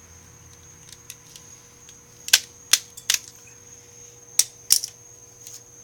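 Sharp plastic clicks and snaps from the broken flip phone's casing being pried and worked by hand: three quick ones about two seconds in, then two more close together a little after four seconds. A faint steady high whine and hum lie underneath.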